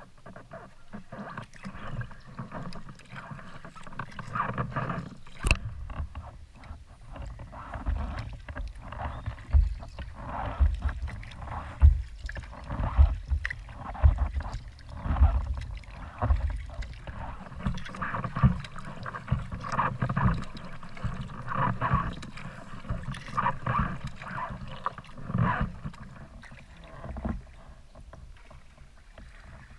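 Kayak paddling: the paddle blades dipping and splashing in repeated strokes about once a second, with water sloshing against the hull. The strokes die down in the last few seconds.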